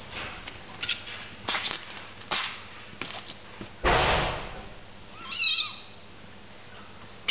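Five-week-old kittens scuffling on a cloth blanket: short scratchy rustles, a louder rustle about four seconds in, then one brief, high kitten mew.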